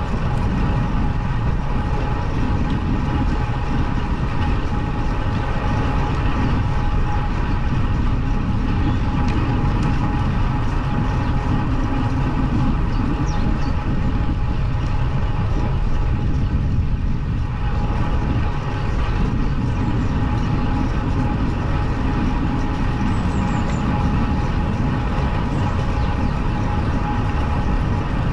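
Bicycle riding uphill on a tarmac lane: a steady low rumble of road vibration and wind on the bike-mounted camera's microphone, with a faint steady whine.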